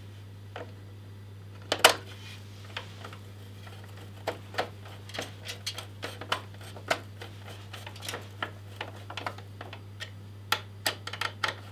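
Irregular small clicks and taps of a screwdriver working screws into a CPU cooler's mounting bracket on a motherboard, with one sharper knock about two seconds in, over a steady low hum.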